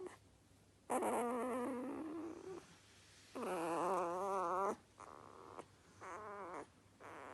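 Sleeping Dobermann puppy snoring: four pitched, wavering snores, the loudest about halfway through.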